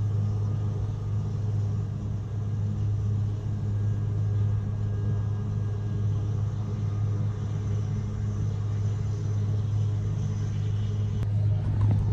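A steady, unbroken low mechanical drone heard from inside a car's cabin, the sound of a running engine or machine close by.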